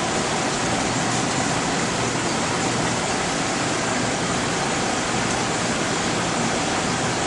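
Steady, even rushing noise with a faint high whine held through it: the constant background of a laboratory hall full of running equipment. It does not change.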